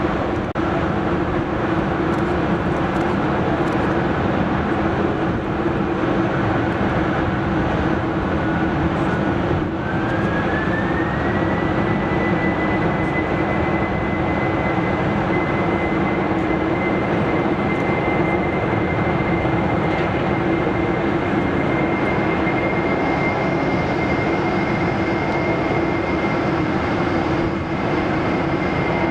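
Boeing 747-400 jet engines running as the airliner taxis, a steady rumble with a thin high whine that rises in pitch about ten seconds in and then holds level.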